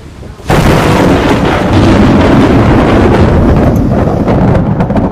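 Thunder during a rainstorm: a sudden, very loud crack about half a second in, which then keeps rumbling heavily with a rough crackle.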